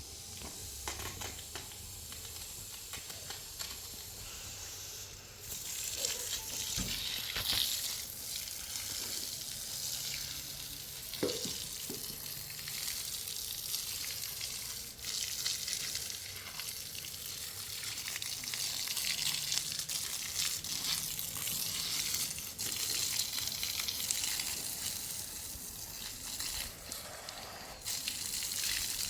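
Food sizzling as it fries in a pan: a steady hiss that grows louder about five seconds in, with a few light knocks.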